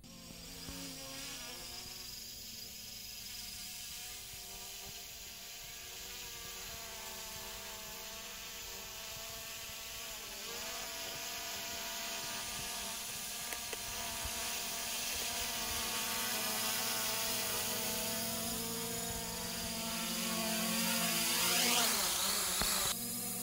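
Hubsan H501S quadcopter's motors and propellers buzzing in flight, the pitch drifting up and down as it manoeuvres. It grows louder toward the end as it comes in close, then cuts off abruptly.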